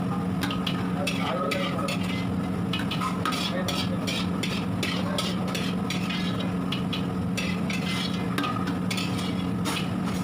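Ladle stirring and scraping in a cooking pot, with many quick, irregular scrapes over a steady low hum.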